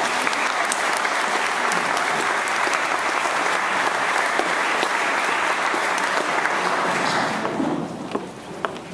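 Audience applause, many hands clapping steadily, dying away about seven and a half seconds in to a few scattered claps.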